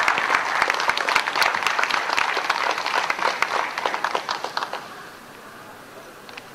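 Audience applauding, a dense run of claps that dies away about three-quarters of the way through.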